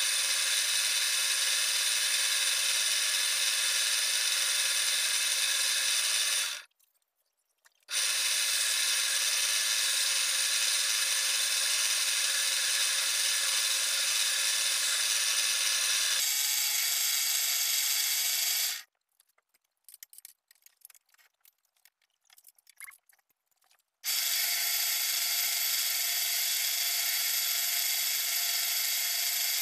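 Wood lathe running with a cutting tool scraping a spinning wooden spindle: a steady motor hum mixed with the noise of the tool on the wood. The sound cuts off abruptly twice, for about a second a quarter of the way in and for about five seconds past the middle.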